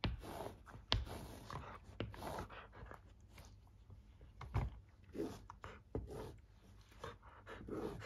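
A young bearded collie playing with an ice cube on a rug, breathing in irregular puffs as it noses and paws at it, with a few sharp knocks: one at the start, one about a second in and one about six seconds in.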